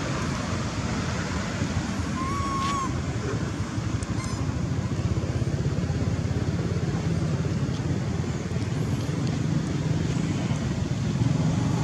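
Wind buffeting the microphone: a steady low rumble and hiss. A short high chirp comes about two and a half seconds in.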